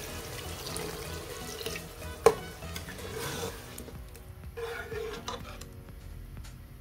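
Aloo keema cooking in a pan: a sizzling hiss while it is stirred, with one sharp clink of the spoon against the pan about two seconds in. The sizzle thins out after about four seconds, leaving a few scraping stirs. Soft background music underneath.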